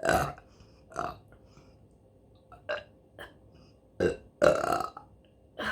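A woman burping repeatedly: a run of separate burps with a couple of short faint ones between them, the longest and loudest about four and a half seconds in.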